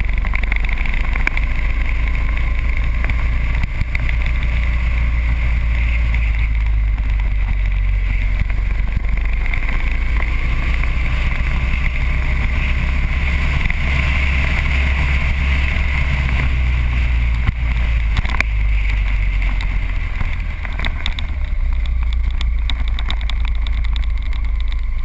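Motorcycle riding at road speed: a steady rush of wind on the action camera's microphone with the engine's low drone underneath.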